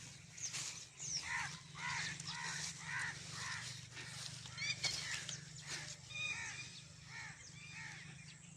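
A flock of birds calling, with a run of harsh, arched calls repeated about every half second and many higher chirps over them, above a steady low hum.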